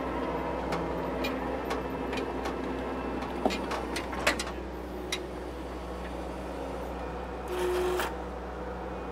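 Case TV450 skid steer's diesel engine running steadily, heard from inside the cab, with scattered light clicks and knocks in the first few seconds. About seven and a half seconds in there is a brief, louder rush of noise.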